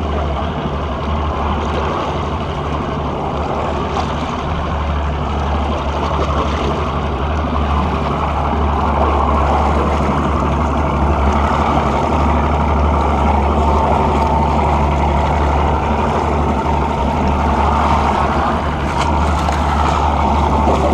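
Mercury OptiMax two-stroke outboard running steadily at trolling speed, a constant low drone, with water rushing and churning past the stern.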